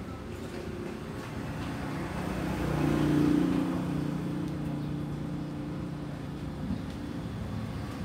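A motor vehicle passing by, its engine hum swelling about three seconds in and fading away over the next two seconds, over steady background traffic noise.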